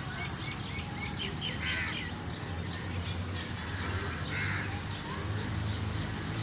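Birds calling outdoors, with many short chirps and two louder, harsher calls about two and four and a half seconds in, over a low steady hum.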